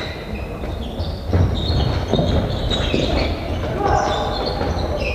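Players' sports shoes squeaking on the indoor court floor as they run and turn, with players' shouts and the odd knock of the ball, all echoing in a large hall.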